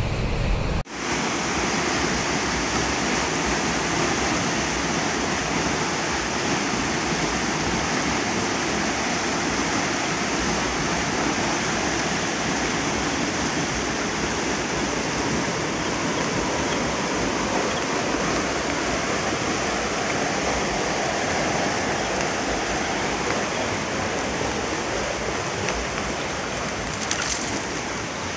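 Rain-swollen stream in flood, muddy water rushing steadily over rocks as an even, loud rush, with a brief break about a second in.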